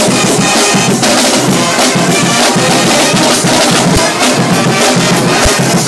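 Street brass band playing loudly: trumpets and other brass horns over a steady drum beat.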